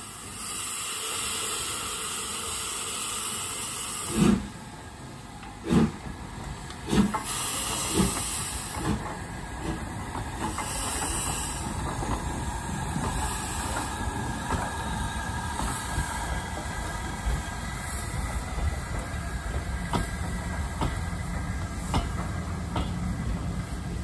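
LMS Black 5 two-cylinder 4-6-0 steam locomotive starting away: a hiss of steam, then exhaust beats that begin more than a second apart about four seconds in and quicken into a steady chuff as the train gathers speed.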